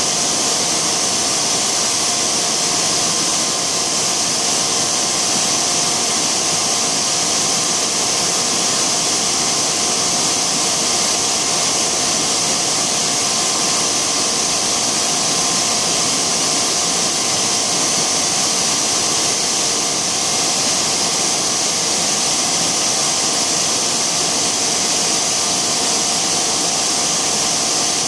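Tongda TDW 350D extrusion blow moulding machine running: a loud, steady mechanical drone with a strong high hiss and a few steady hum tones.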